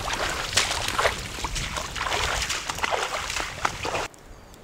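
Wading footsteps splashing and sloshing through shallow floodwater, a busy run of irregular splashes that cuts off abruptly about four seconds in.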